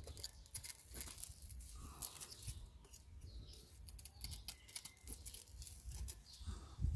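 A knife working into the fibrous crown of a green banana bunch to free a hand from the stalk, giving a run of small irregular clicks and crackles.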